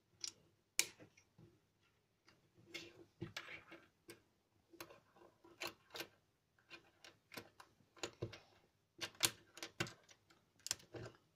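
Plastic LEGO bricks being picked up off a wooden tabletop and pressed together: scattered, irregular clicks and light knocks, more of them about nine to ten seconds in.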